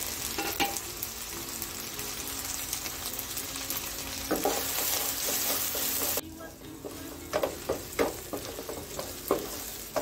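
Whole small onions, green chillies and spring onion flower stalks sizzling in oil in a nonstick pan while a spatula stirs and scrapes them as they sauté soft. The sizzling hiss drops off suddenly about six seconds in, after which separate spatula scrapes stand out.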